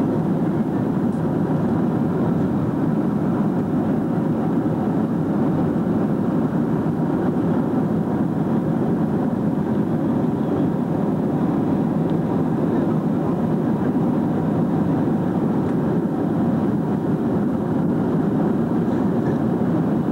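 Steady rushing cabin noise of a Boeing 747 in flight, the engines and airflow heard from a window seat, even and unchanging throughout.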